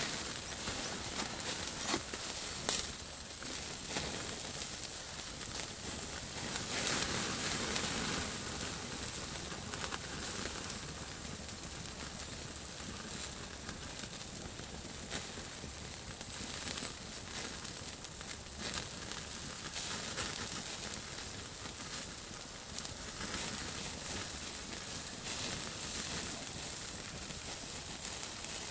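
Small wood campfire crackling, with scattered sharp snaps, and rustling of dry leaves and kindling as someone moves and handles things beside it.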